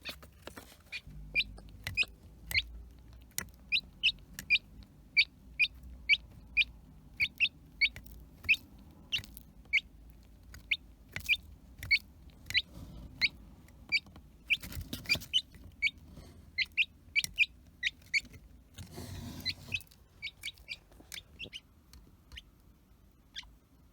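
Three-day-old chick peeping: short, high chirps repeating about twice a second. There is a brief rustling noise about four-fifths of the way through.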